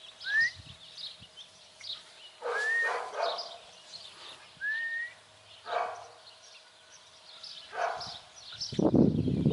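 Three-month-old Belgian Malinois puppy giving short rising whines and a few brief yips, with small birds chirping in the background. A loud burst of low rumbling noise comes near the end.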